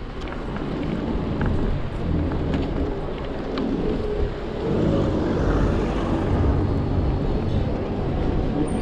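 Okai ES400A electric kick scooter riding along a street: a steady rumble of wind on the microphone and tyre and road noise, with a few small clicks.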